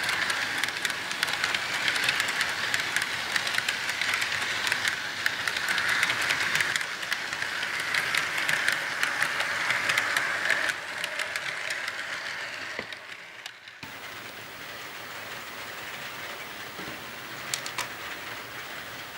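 HO scale model freight cars rolling past close by, their metal wheels clicking quickly over the track joints over a steady rolling hiss. About ten seconds in it tails off as the end of the train passes. After a break it is quieter and more distant.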